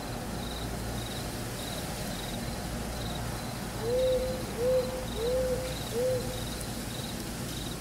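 Nature-sound audio feedback from the FocusBand EEG headband app: a cricket chirping steadily and regularly, with an owl hooting four times in quick succession about halfway through.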